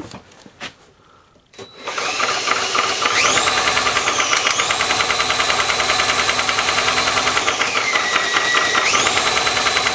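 Power drill spinning a lawnmower engine over by its crankshaft through a socket, with the spark plug out so there is no compression. The drill motor whines steadily, starting a couple of seconds in; its pitch climbs, dips briefly, drops near the end and climbs again, over a fast, even pulsing from the turning engine.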